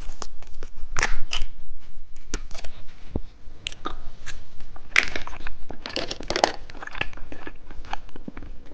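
Plastic snack packaging crinkling and rustling as it is handled and pulled about, with many irregular sharp crackles.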